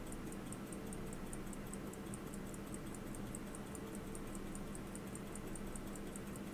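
Elgin hunter pocket watch movement ticking steadily, about five faint, sharp ticks a second, over a low steady hum. The movement is running after a barrel repair but with only a weak balance amplitude, and it is being oiled to help it.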